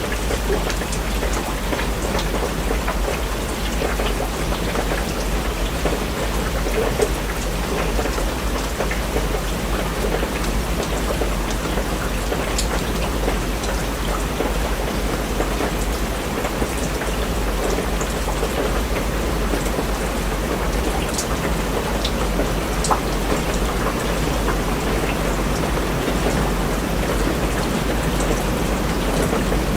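Steady rain falling, with scattered sharp drop ticks and a constant low rumble underneath.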